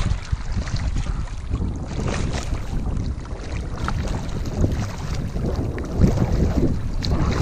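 Wind rumbling on the microphone over water splashing and sloshing against the side of a small boat.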